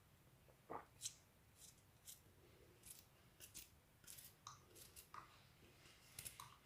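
Garlic cloves being cut into small pieces: about a dozen faint, crisp cuts at an irregular pace.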